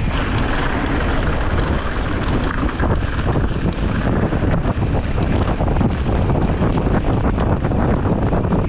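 Heavy wind buffeting the microphone of a camera carried at speed on a mountain-bike descent, with steady low rumble and scattered short knocks and rattles.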